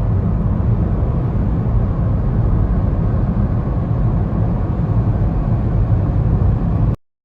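Steady low rumble of a car's road and engine noise, heard from inside the moving car, cut off abruptly near the end.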